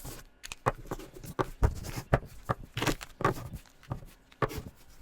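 Plastic felt-tip marker pens being handled: a string of irregular sharp clicks and taps, about a dozen, as pens knock together and are set down.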